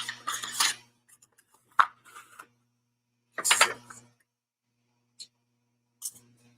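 Album photo cards and paper inserts being handled: a few short rustling scrapes, with a sharp click about two seconds in.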